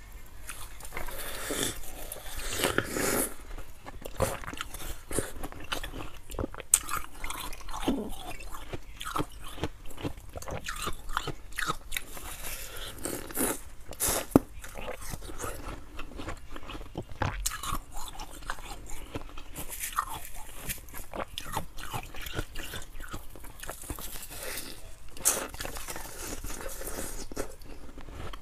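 Slushy ice frozen in the shape of a water bottle being bitten and chewed: dense, irregular crunching throughout.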